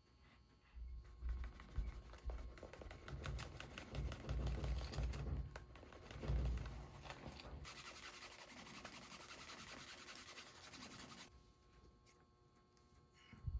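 Hand work on a leather sheath: scratchy rubbing and scraping strokes with low knocks of handling. These are followed by a steady hiss for a few seconds that cuts off suddenly.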